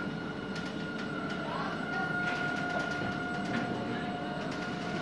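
CNC-retrofitted Mammut long-arm sewing machine running: a steady motor whine with held tones over a mechanical hum, and a few light ticks about two to four seconds in.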